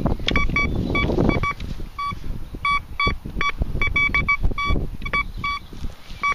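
Thracian metal detector giving a string of short, high-pitched target beeps as its spider coil is swept over an open hole, a strong signal that the operator reads as a big target. Wind buffets the microphone in the first second or so.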